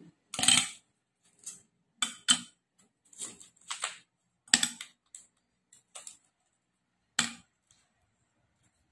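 Ice cubes dropped from an ice tray into glass mugs, each landing with a sharp clink; about ten separate knocks with short silent gaps between them.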